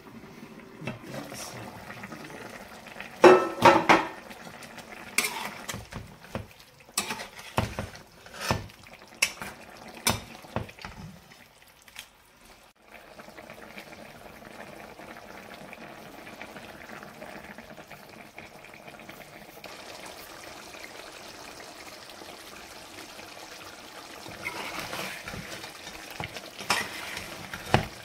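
Cookware knocks and clatters against a nonstick frying pan for several seconds, the loudest a cluster about three seconds in. After a short pause, chicken curry simmers with a steady bubbling hiss, and near the end a steel ladle stirs through it, scraping and knocking against the pan.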